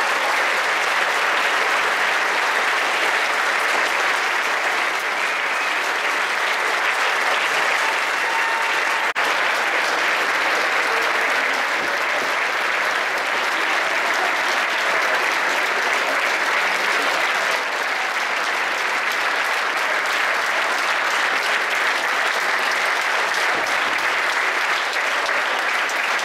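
Audience applauding steadily, a dense, even clapping from a large crowd.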